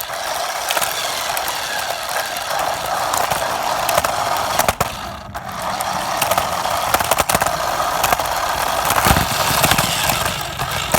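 An RC car driving, heard from a camera taped onto it: a loud, steady rolling and rattling noise, with a few knocks along the way.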